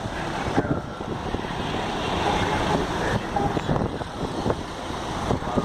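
Road noise from a motor vehicle running, with wind buffeting the microphone and a few scattered knocks.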